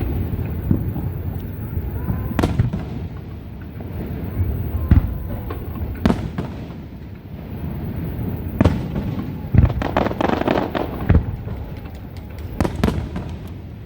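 Fireworks display: aerial shells bursting with sharp bangs every second or two over a low rumbling boom, and a quick run of crackling about ten seconds in.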